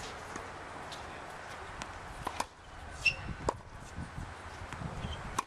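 Tennis balls struck by rackets and bouncing on a hard court during a rally: a few sharp pops, the loudest about three seconds in.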